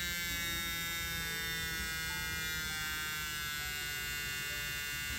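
Practice permanent makeup machine's small electric motor running with a steady buzz, its pitch sinking a little as the speed dial is turned down toward setting 1.5.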